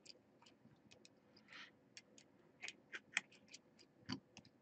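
Faint, irregular small clicks and ticks of precision tools and tiny screws as the battery connector cover is taken off an opened iPhone 6s, with a louder tap about four seconds in.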